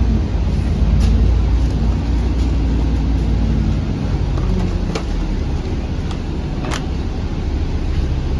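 Double-decker bus running, heard from on board: a steady low engine rumble with a few short clicks or rattles.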